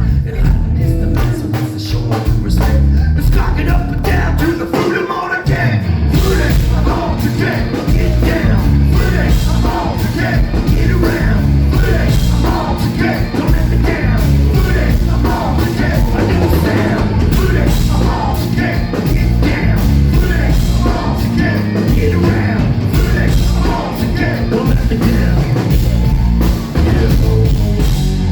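Rock band playing loud live music in a club, with drums, bass and guitars.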